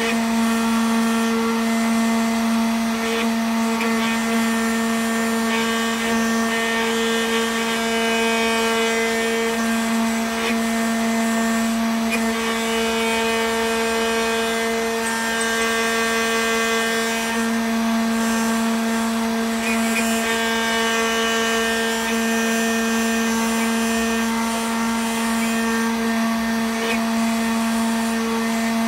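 Homemade CNC router carving a block of candle wax with a small engraving bit. It runs as a steady machine hum with a strong low tone and a stack of higher tones above it, broken now and then by faint ticks.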